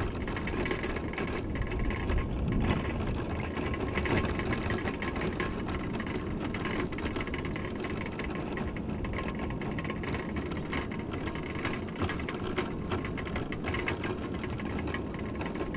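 Electric mobility scooter running along a cracked asphalt road: a steady motor whir and tyre noise, with frequent small clicks and rattles.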